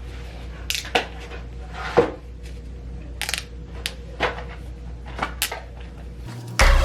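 Scattered soft clicks, taps and rustles of small things being handled close to the microphone, over a faint steady hum; music comes in just before the end.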